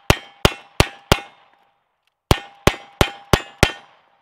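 Single-action revolver shots at about three a second: four shots, a gap of about a second while the first gun is put away and the second is drawn, then five more. A ringing tone hangs under the shots, typical of steel targets being hit.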